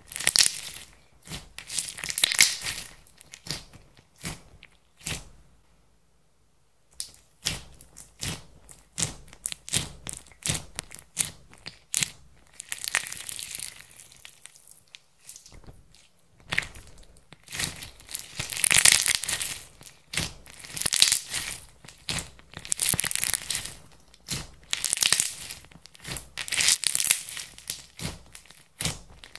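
Hands pressing and stretching glittery red clear slime, giving repeated bursts of crackling and clicking, with a brief lull about six seconds in and bursts coming about every two seconds later on.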